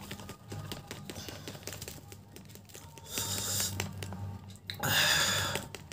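Snack chips being mixed by hand in a plastic crisp packet: a run of small clicks and crackles, with two louder crinkling rustles of the packet about three seconds and five seconds in.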